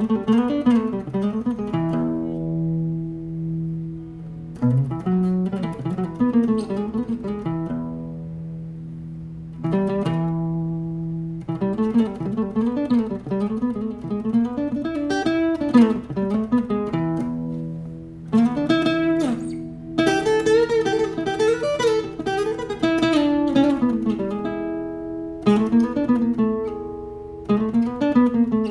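Solo acoustic cutaway guitar played fingerstyle: phrases of picked melody notes over low bass notes, with chords left ringing in the short pauses between phrases.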